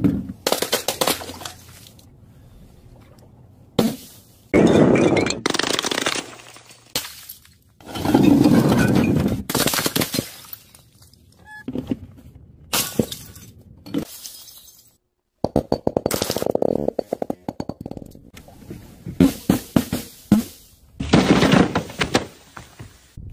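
Liquid-filled balloons, balls and bottles dropped from a height, bursting and smashing on the ground one after another, with splashes. Many separate impacts and bursts, with short pauses between them.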